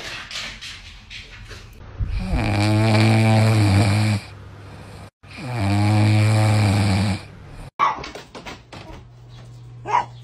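A sleeping puppy snoring loudly: two long snores, each about two seconds, a little over a second apart.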